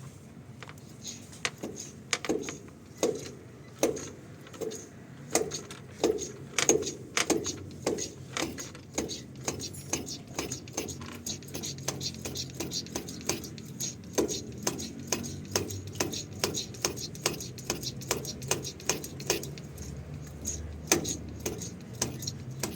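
Hand priming pump on a Renault Midlum DXi5 diesel's fuel filter being pumped by hand: a long run of short clicking knocks at about two strokes a second, a little quicker in the second half. It is priming the fuel system, which a leaking fuel filter has left hard to start.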